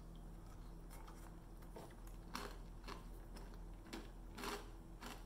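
Faint chewing of a dark-chocolate-coated chickpea, a few soft crunches spread over several seconds.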